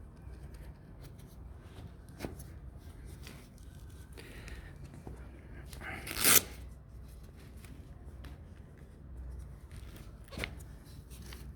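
Faint rustling and small clicks of handling, with one loud, short, sharp knock about six seconds in and a lighter one near the end.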